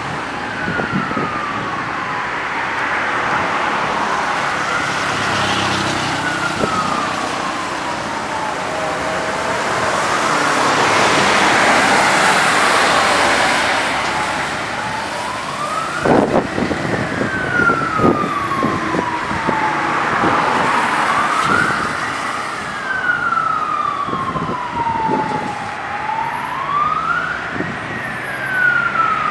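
Emergency vehicle siren wailing, each cycle rising quickly and falling slowly, over steady road traffic on a wet road. A vehicle passes close about twelve seconds in, the loudest moment, and a few sharp knocks come around sixteen to twenty seconds in.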